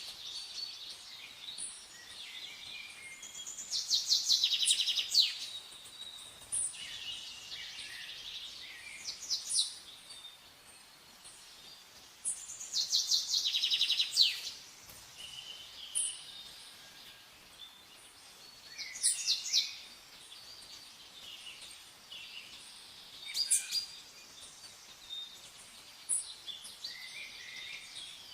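Songbirds singing: a loud, rapid trilled phrase comes back every few seconds, with softer chirps and calls between.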